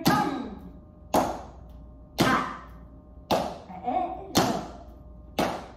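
Body percussion keeping a steady beat: one sharp strike about every second, each ringing briefly in the room, with a faint voice between the strikes.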